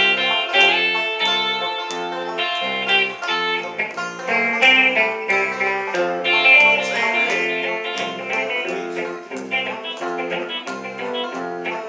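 Southern gospel band playing an instrumental passage on banjo, electric guitar and bass guitar, over a bass line that alternates steadily between two notes.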